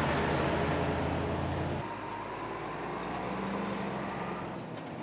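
Road traffic with vehicles running past. A heavy truck's engine is heard. A deep low rumble cuts off abruptly about two seconds in, and a steadier low engine drone follows.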